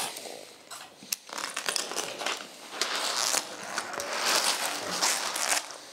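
Dog collars being handled and fitted on a dog: a crinkly rustle with scattered sharp clicks.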